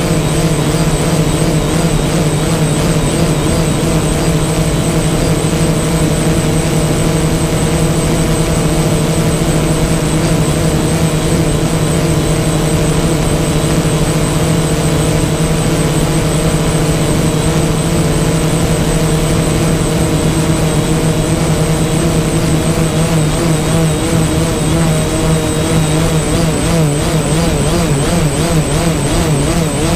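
DJI Phantom quadcopter's electric motors and propellers running in flight, a loud, steady hum with its pitch wavering slightly, heard up close from the GoPro mounted on the drone.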